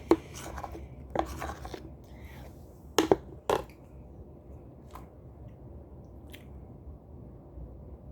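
Fidget toys being handled and set down while sorting: a string of sharp knocks and clatters, the two loudest a half second apart about three seconds in, then a few fainter taps.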